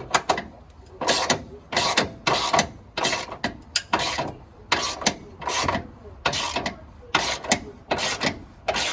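A hand tool worked in steady repeated strokes: a short rasping, clicking burst about every two-thirds of a second.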